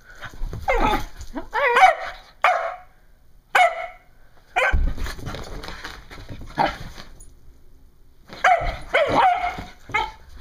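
Seven-month-old Brittany puppy barking and yipping in several short bursts, with a stretch of rustling noise about halfway through.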